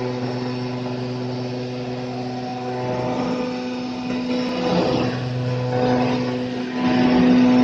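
A machine motor running with a steady hum, swelling louder a few times and loudest near the end.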